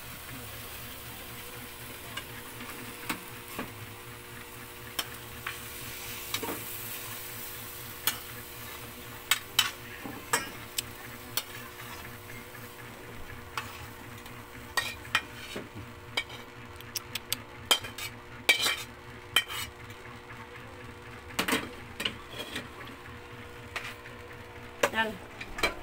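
Stir-fried vegetables sizzling in a stainless steel pan while a utensil stirs, scrapes and knocks against the pan. The sizzle fades about halfway through, and sharp clicks and scrapes go on as the food is scraped out of the pan.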